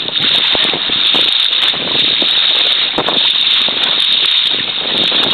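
Steady wind noise buffeting the microphone on open water, with water rushing and splashing and a few short knocks.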